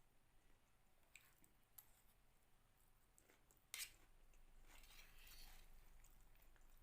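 Faint close-up eating sounds: soft chewing with scattered small clicks, one sharper click or snap a little under four seconds in, then about a second of soft crackling.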